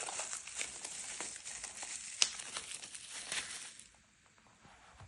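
Crinkling, rustling handling noise with many small clicks and one sharper click about two seconds in, as the small audio mixer and its cables are set in place; it dies away about four seconds in.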